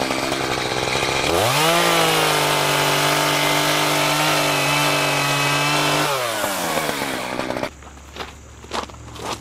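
Echo two-stroke chainsaw revving up sharply to full throttle about a second in, holding high revs for about four seconds while cutting brush and a branch, then dropping back toward idle. Near the end the saw noise stops abruptly, leaving a few light knocks.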